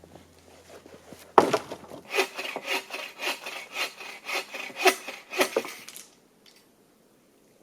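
Hand saw cutting through wood in quick back-and-forth strokes, about two a second, starting a little over a second in and stopping about six seconds in.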